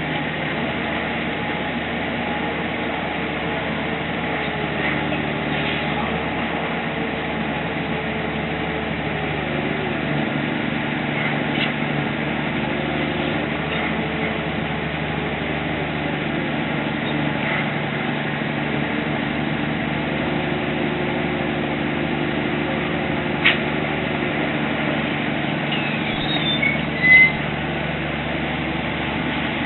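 Steady engine drone, its pitch drifting slightly up and down, with a single sharp click about three-quarters of the way through and a brief louder sound near the end.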